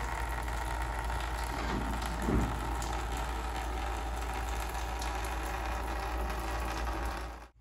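Two-post car lift's hydraulic power unit running with a steady hum as the raised car is let down, with a brief thump about two and a half seconds in.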